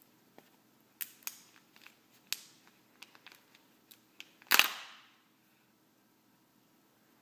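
Plastic wrapper of a Kinder Joy egg crinkling and tearing as it is peeled off by hand: scattered sharp crackles, then one loud crackling rip about four and a half seconds in.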